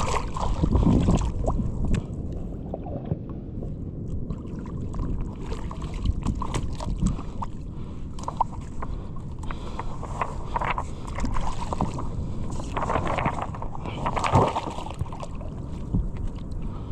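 Sea water sloshing and splashing around a fisherman's inner-tube float, with wind rumbling on the microphone and scattered small knocks.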